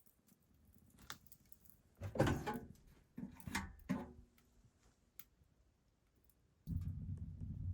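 A few knocks and clicks from things being handled, the loudest about two seconds in. Near the end a steady low rumble starts suddenly.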